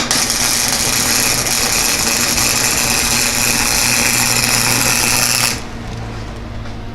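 Welder running a bead: a steady, loud frying hiss with a low electrical hum that lasts about five and a half seconds and then stops abruptly.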